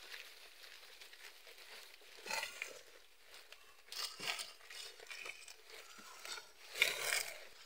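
Goats tearing and munching fresh-cut green grass: a faint rustling, crunching sound with louder bursts about two, four and seven seconds in.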